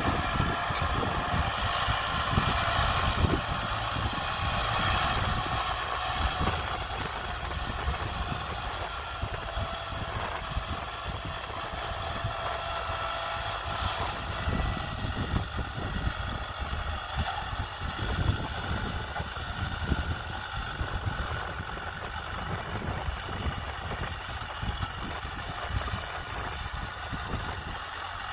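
Kubota M6040SU tractor's four-cylinder diesel engine running steadily as the tractor pulls a disc harrow through dry soil.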